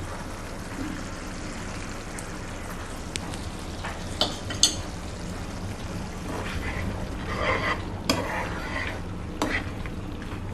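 A ladle stirring and scraping thick pav bhaji vegetable mash in a cooking pan, with a few sharp knocks of metal against the pan, over a steady low background.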